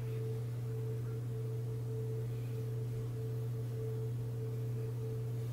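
A steady low electrical hum with a fainter, higher steady tone above it, unchanging throughout.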